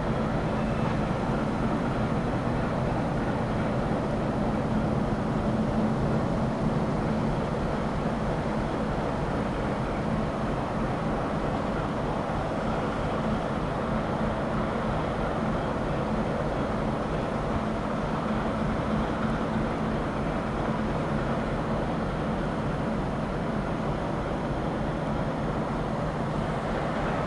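DR1A diesel multiple unit's diesel engine running steadily, a low hum over a constant rumble.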